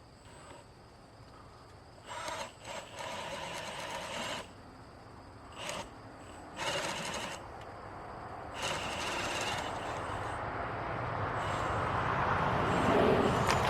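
A power drill runs in several short bursts, boring a hole through a wooden 4x6 post. Near the end a broad rushing noise swells up, with insects chirping faintly underneath.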